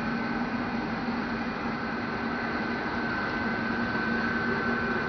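Steady hum and hiss of the International Space Station's cabin ventilation fans and equipment, with a constant low tone and a constant high tone.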